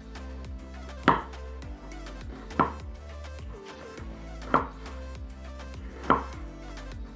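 Kitchen knife chopping on a cutting board: four single chops about a second and a half apart, over quieter background music.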